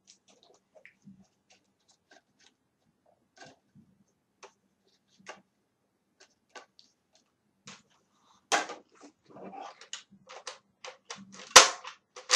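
Scattered plastic clicks and rattles of a Nerf Retaliator dart blaster being handled and reloaded. The clicks come more thickly toward the end, with one sharp loud clack near the end.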